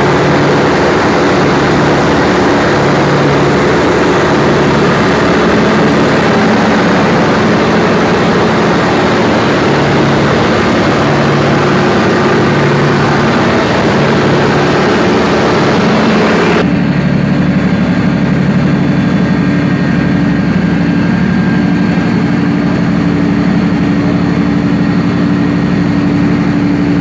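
Perkins 4012 V12 diesel engine running loud and steady on a test run after its overhaul. About two-thirds of the way through, the high hissing part of the sound cuts off suddenly while the deep, even engine note carries on.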